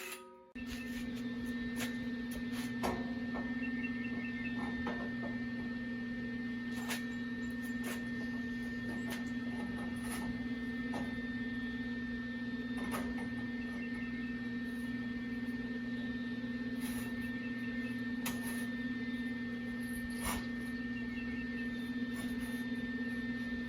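A steady low machine or electrical hum with a thin high tone above it, and scattered light clicks and knocks.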